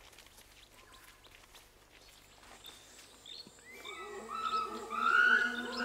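Faint background with a few soft clicks, then about four seconds in a man's voice starts, its pitch rising and falling.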